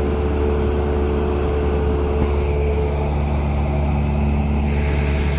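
Steady drone of a Cessna's single piston engine and propeller, heard inside the cabin, with a strong low hum under a hiss of air. The higher hiss grows a little stronger near the end.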